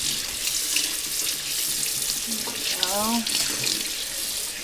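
Kitchen faucet running steadily into a stainless steel sink, the stream splashing over a whole raw chicken as it is rinsed and turned under the water.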